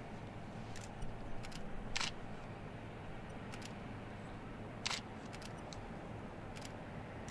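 Camera shutter clicking now and then, two clicks louder than the rest, about three seconds apart, over a faint steady low rumble.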